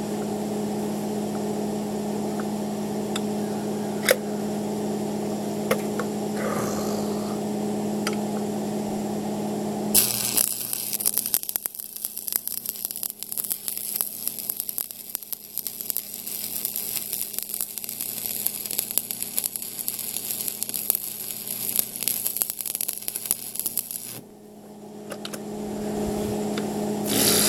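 A steady machine hum, then about ten seconds in a stick-welding arc is struck with a 7018 rod and crackles for about fourteen seconds before stopping abruptly; the hum then rises back up.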